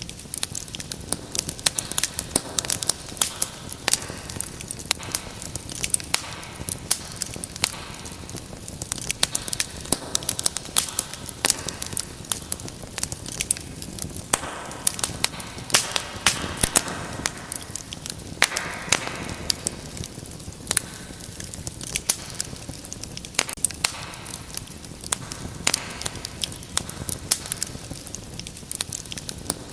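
Wood fire in a fireplace crackling steadily: dense, irregular sharp pops and snaps over a soft hiss of the flames, with a brief louder hiss about 15 and 19 seconds in.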